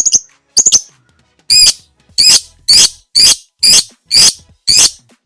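Lovebird (labet) in its 'ngekek' song: loud, shrill calls repeated about twice a second, with a short break about a second in.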